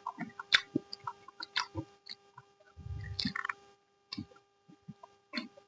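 A person eating: irregular wet clicks and smacks of the mouth while chewing, with a brief low rumble about three seconds in.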